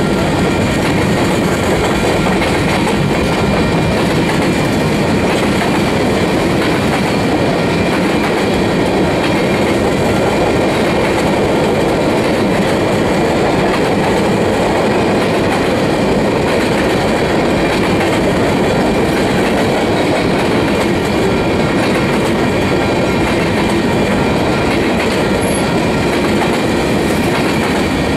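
Freight train's covered hopper cars rolling past at speed: steel wheels on the rails make a steady loud rumble and clatter, with a few faint steady high-pitched tones over it.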